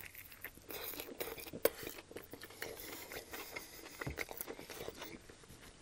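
Close-miked chewing of a bite of panko-crusted fried chicken and bacon sandwich on a bun: many small, irregular mouth clicks and smacks, with a couple of louder ones.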